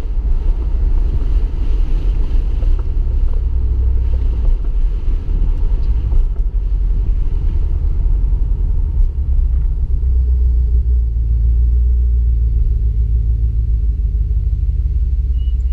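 2015 Ram 1500's 5.7-litre Hemi V8 with a muffler delete and Y-pipe, heard from inside the cab while driving: a steady low exhaust rumble that settles into an even drone about ten seconds in.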